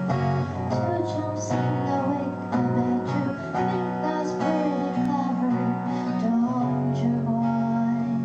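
Music: the instrumental intro of a Mandopop song, with strummed acoustic guitar chords over a held bass line.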